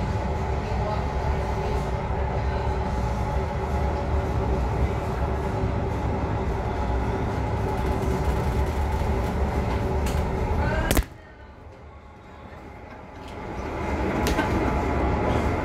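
Steady low drone of a ship's interior below decks while the vessel rolls in a gale. About eleven seconds in, a sharp knock as the camera's tripod topples over; the sound then turns suddenly muffled and quiet and comes back up over a couple of seconds.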